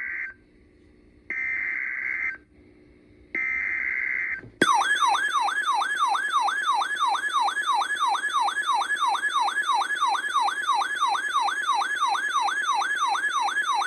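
NOAA Weather Radio emergency alert opening: the end of one burst and two more one-second bursts of the SAME digital header data, the buzzing code that marks the start of an emergency alert. About four and a half seconds in, a loud warbling siren-like alert tone begins, sweeping up and down about three to four times a second.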